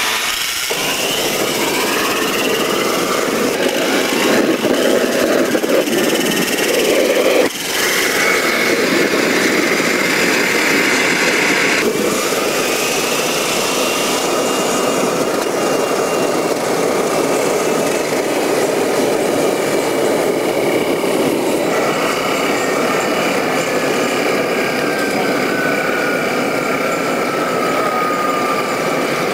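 Homebuilt gas-turbine jet engine made from scrap parts, running loud on pressurised kerosene with no throttle valve, so at full throttle. A turbine whine rises at the start as the electric-drill starter spools it up. The sound jumps abruptly a few times, and later a high whine slowly falls in pitch.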